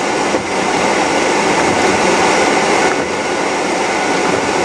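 Steady, loud rush of heavy rain and wind.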